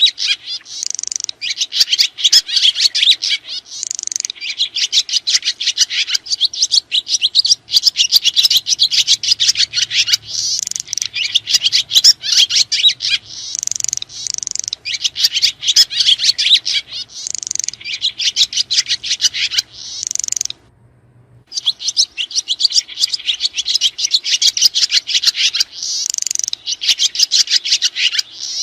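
A flock of swiftlets (sriti) twittering, a dense, fast stream of high chirps. The chirping cuts off for about a second two-thirds of the way through, then resumes.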